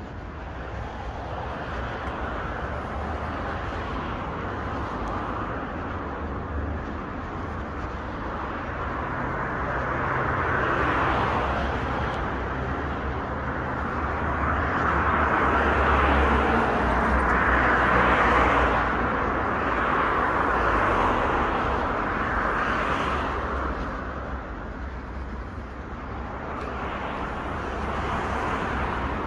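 Road traffic: cars passing one after another, their tyre and engine noise swelling and fading several times. The loudest pass comes about two-thirds of the way in, over a steady low rumble.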